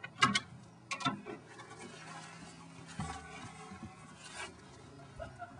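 Footsteps and knocks on a wooden deck and stairway: two sharp knocks about a quarter second and a second in, then lighter scuffing steps.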